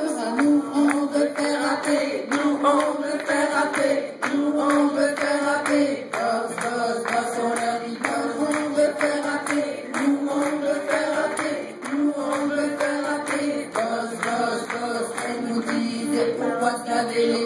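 A group of women singing a French song together into a handheld microphone, to a steady beat of claps.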